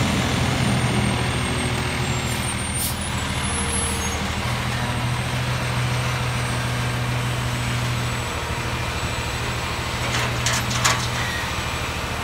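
Diesel engine of a Peterbilt 320 McNeilus front-loader garbage truck running steadily as its hydraulic front forks lift a bin up over the cab, the engine note shifting a couple of times during the lift. A few sharp knocks and rattles come near the end as the bin tips over the top.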